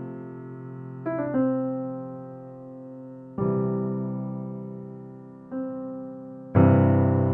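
Slow, soft piano music: sustained chords struck every second or two, each left to ring and fade before the next.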